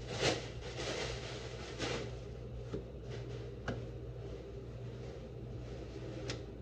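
Scattered light knocks and clicks from handling kitchen things, about half a dozen spread irregularly, over a steady low hum.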